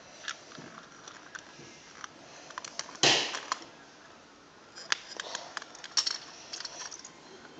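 Plastic Lego bricks clicking and tapping as they are handled and pressed into place, with one louder rustling knock about three seconds in.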